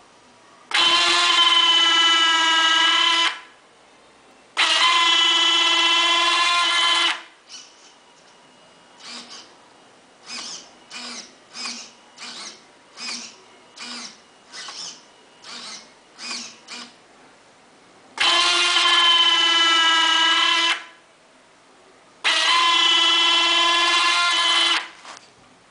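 Electric retractable nose landing gear of a radio-controlled Piper Twin Comanche model being cycled: its motor whines steadily for about two and a half seconds at a time, twice in quick succession, then twice more near the end. In between come about a dozen short, fainter servo buzzes, roughly one every 0.6 s.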